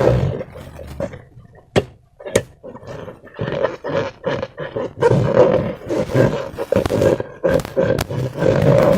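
Rubber balloons squeaking and rasping as they are squeezed and rubbed, with a few sharp snaps.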